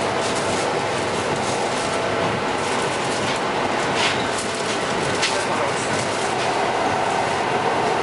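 EP2D electric train running at speed, heard from inside the carriage: a steady rumble and rush of the wheels on the rails, with a few sharp clicks from the wheels over the track.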